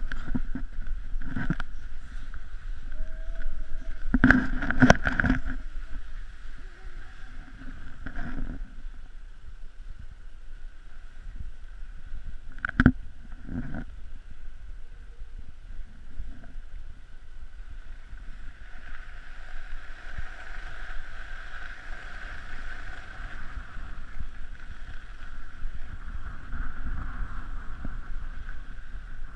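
Skis sliding and scraping over snow with a steady hiss, a little louder past the middle, over the low rumble of wind on the microphone. A few short knocks, the sharpest about thirteen seconds in.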